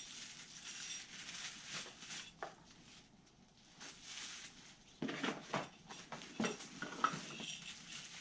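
Hands unpacking and handling a set of LED light pods and their packaging: scattered light clinks, clicks and rustling, busier in the second half.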